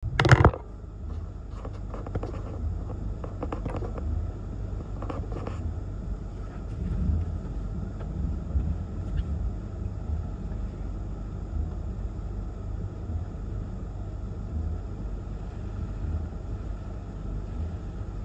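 Gusty storm wind blowing in a steady low rumble that swells and eases. A sharp knock comes right at the start, and a few faint clicks follow in the first several seconds.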